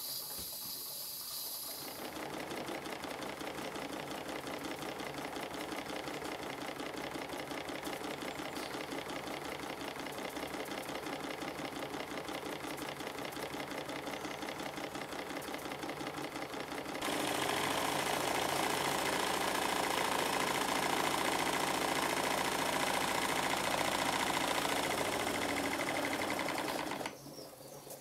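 Stuart Models triple expansion model steam engine running on live steam, a rapid, even mechanical clatter. It opens with about two seconds of steam hissing before the running sound takes over. The running gets louder about 17 seconds in and drops away about a second before the end.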